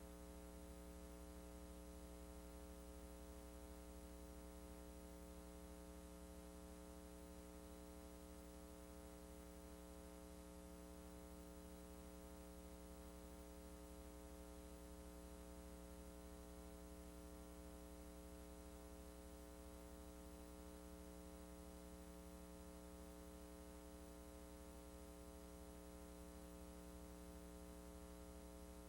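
Near silence: only a faint, steady electrical mains hum with no other sound, the audio track of a silent VHS transfer.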